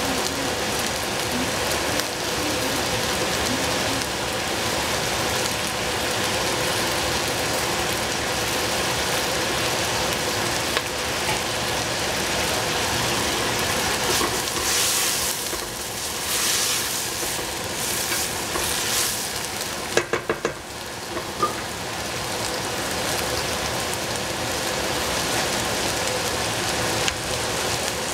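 Food sizzling steadily in a hot frying pan while being stirred, the sizzle surging louder for a few seconds past the middle. A few sharp knocks sound about two-thirds of the way through.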